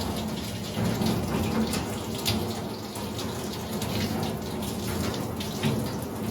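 Running water splashing over a dog being bathed, with small uneven splashes.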